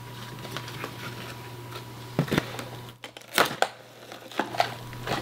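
Packaging and parts being handled as they come out of a box: a few short rustles, crinkles and knocks, the loudest a little past the middle.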